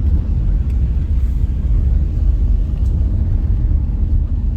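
Subaru Outback driving slowly, a steady low road and engine rumble heard from inside the car, with a few faint ticks.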